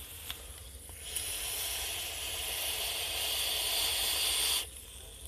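Steady hiss of a draw through a rebuildable dripping atomizer with a single 28-gauge Ni200 temperature-control coil: air rushing through two open air holes while the coil vaporizes the e-liquid. It starts about a second in, runs about three and a half seconds and cuts off sharply; the vaper finds the draw way too airy.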